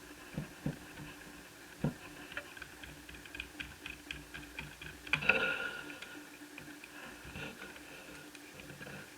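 Small clicks and taps of hands working inside an open Asus Eee PC 1001P netbook while its hard drive is being removed, with a few sharper knocks and a louder scraping rustle about five seconds in.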